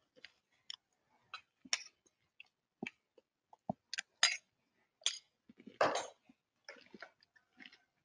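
Scattered soft clicks and taps at an irregular pace, a few a second, with a longer rustle about six seconds in.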